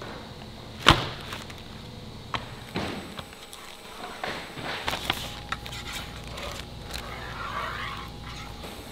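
Wrapped plywood panels being handled: a sharp knock about a second in, then scattered taps and the crinkle and rustle of white protective wrapping being slit with a utility knife and pulled off the panels. A steady low hum comes in about five seconds in.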